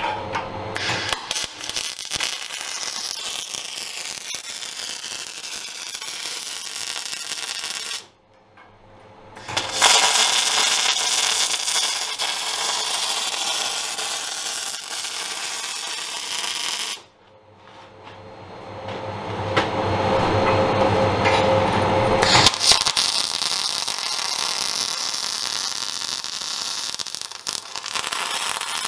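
MIG welder arc burning on a steel plate weld, running steadily in three runs. It breaks off briefly about eight seconds in and again about seventeen seconds in.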